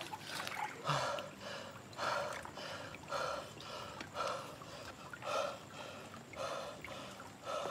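A man panting hard, about one heavy breath a second: he is winded after swimming.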